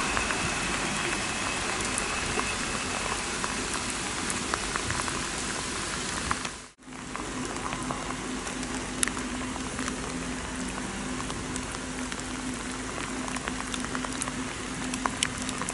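Steady rain falling on the station platform, with scattered sharp drop clicks close to the microphone. The sound drops out briefly about seven seconds in where the recording is cut, then the rain carries on.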